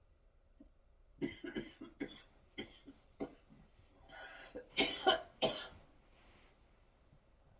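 A person coughing in a fit: a quick run of short coughs over about four seconds, the last few loudest, with a rasping breath drawn in between.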